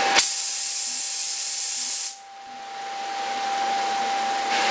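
Oxy-acetylene torch on a Harris automatic handle: the flame comes on full with a pop and a loud hiss. About two seconds in it cuts back sharply to the quieter pilot flame, then pops back up to full hiss near the end as the lever is pressed again.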